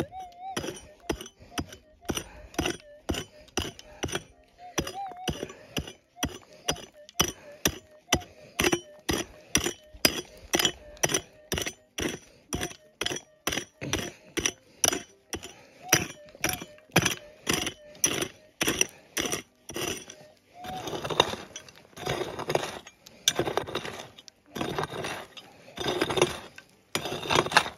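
A metal digging tool chipping into rocky ground, striking stones with sharp chinking blows about twice a second. Near the end it changes to slower, longer scraping strokes as loose dirt is dug out of the hole.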